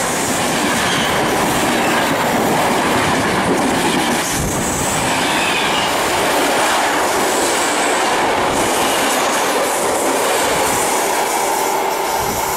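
Locomotive-hauled passenger train's coaches passing close at speed: a loud, steady rush of steel wheels running on the rails. It eases slightly near the end as the last coach goes by.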